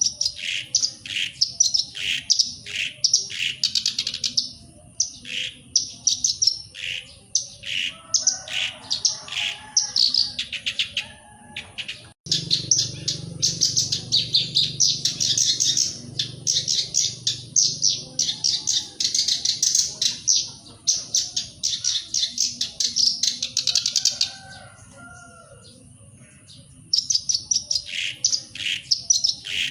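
Black-browed reed warbler singing: rapid runs of short, chattering notes in repeated phrases. The song pauses for a few seconds near the end, then starts again.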